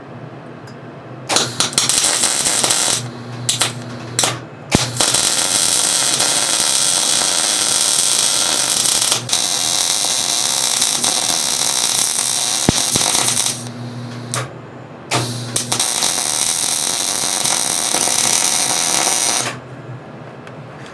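Wire-feed (MIG) welding arc crackling as a steel cross tube is welded onto the rod end of a hydraulic cylinder. A few short stuttering starts come first, then one long continuous bead of about nine seconds, a brief pause, and two more runs that stop about a second and a half before the end, with a low electrical hum under the arc.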